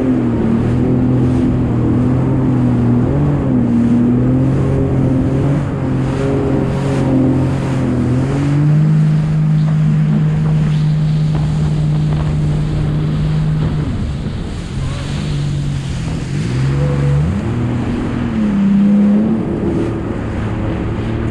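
Jet ski engine running under way. Its pitch steps up about eight seconds in, drops back around fourteen seconds and climbs again near the end, over wind buffeting the microphone and the hiss of spray at the hull.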